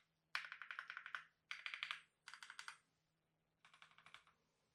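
Keychron Q1 Max aluminium mechanical keyboard with brown switches being typed on: four short runs of rapid keystrokes, quiet.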